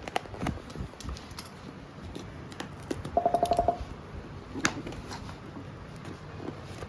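A package being opened by hand: scattered clicks, taps and handling noises, with a quick rattling run of about ten clicks a little past the middle.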